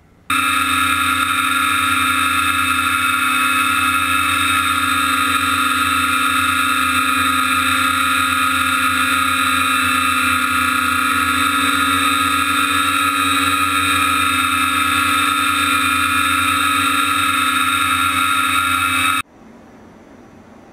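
DJI F550 hexacopter's brushless motors and propellers running loud and close, heard from a camera mounted on the frame, holding one steady pitch made of several tones. It starts suddenly just after the opening and cuts off suddenly about a second and a half before the end.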